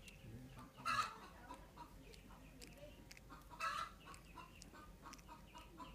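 Short animal calls: two loud calls about two and a half seconds apart, then a quick run of short repeated notes, about six a second, near the end.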